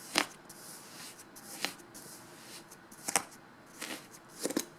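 Hands digging and sifting through kinetic sand: about five short, soft scraping rustles a second or so apart.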